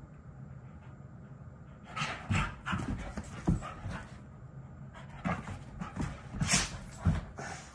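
Two dogs play-wrestling: scuffling paws, bumps and panting in irregular bursts, starting about two seconds in and again after a short lull.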